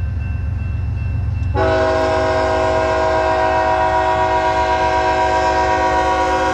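BNSF diesel freight locomotive's multi-chime air horn sounding one long blast, a chord of several steady tones that comes in loud about a second and a half in, over the low rumble of the diesel engines as the train pulls out.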